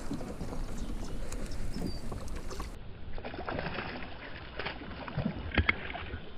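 A hooked largemouth bass thrashing and splashing at the water surface beside a kayak, with irregular splashes and water sloshing against the hull.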